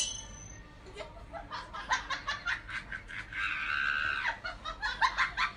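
A person laughing in quick, breathy bursts.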